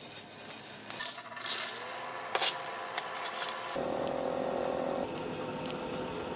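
Lumps of coal scraped and knocking together in a forge trough, with a few sharp clicks. A steady hum rises in pitch about two seconds in and holds, louder in the second half, as the coal fire burns.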